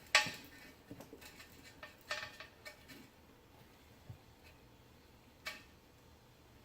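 Handling noises as a tire and tube are lifted and set onto a wire wheel: a sharp knock just after the start, another about two seconds in and a third about five and a half seconds in, with light taps and rustling between.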